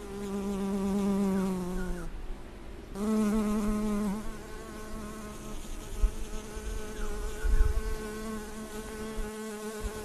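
Honey bee buzzing in flight close by, the steady hum of its wingbeats. The buzz is loud for about two seconds with its pitch sagging slightly, drops out for a second, comes back loud, then settles into a fainter steady hum. A few low thumps come around the middle.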